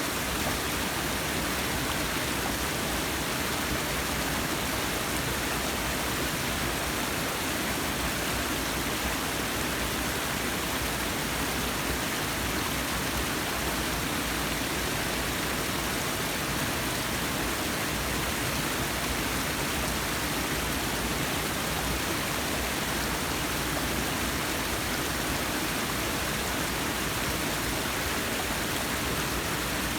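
Forest waterfall: a steady, even rush of falling water with no breaks.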